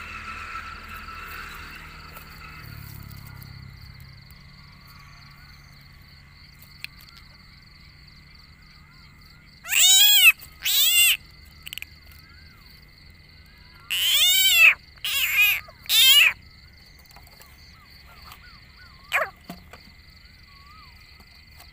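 Rice field frog croaking loudly and close: two pulsed croaks about ten seconds in, then three more between about fourteen and sixteen seconds, with a short call near the end. A steady faint high-pitched whine runs underneath.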